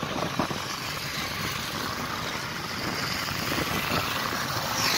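Steady rush of wind and engine noise from a motorcycle underway, swelling slightly near the end.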